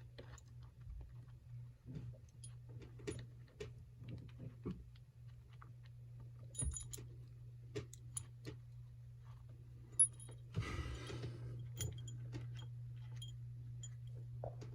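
Irregular small metal clicks and clinks of a metal trick bolt puzzle being handled and twisted, its parts knocking together, with a short rustle about ten and a half seconds in. A faint steady hum runs underneath.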